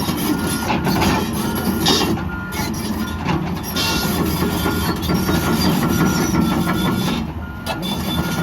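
John Deere 210G LC track excavator's diesel engine working under load, with a steady high whine over the low rumble and scattered scrapes and clatters from the digging.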